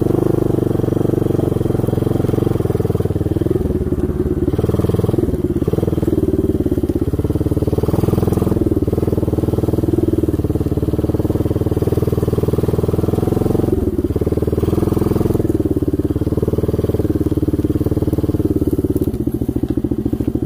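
125 cc ATV engine with a manual gearbox running under way, loud and steady. Its note dips briefly a few times and drops to a lower, slower running near the end.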